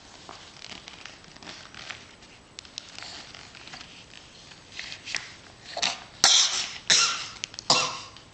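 A person making short, noisy throat and mouth sounds: soft scattered bursts at first, then three louder ones in the last couple of seconds.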